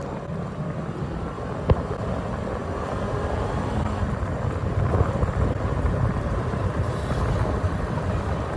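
Honda Civic's swapped K20Z1 four-cylinder engine pulling hard under acceleration, heard from inside the car, the engine sound growing steadily louder as the revs climb into VTEC. A single sharp click comes just under two seconds in.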